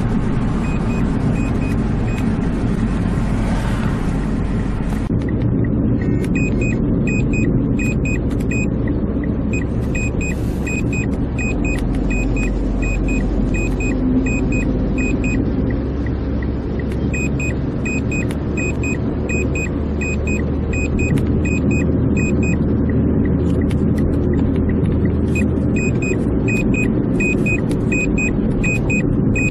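Aftermarket blind spot detection system's warning buzzer beeping rapidly in runs of several seconds, the alert that a vehicle is in the blind spot. Under it, steady road and engine noise heard inside the cabin of a car at highway speed.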